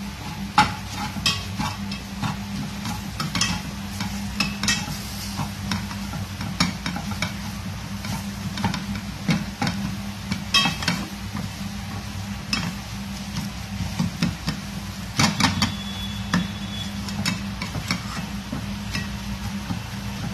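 Spatula scraping and clicking against a metal pot as thick masala is stirred and fried, in quick irregular strokes over a faint sizzle. A steady low hum runs underneath.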